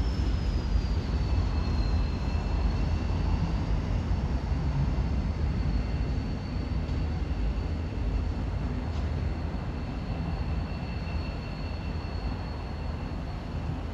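Freight train's tank cars rolling away down the tracks, a steady low rumble that slowly fades. A faint high whine sits above it, dropping in pitch over the first two seconds and then holding steady.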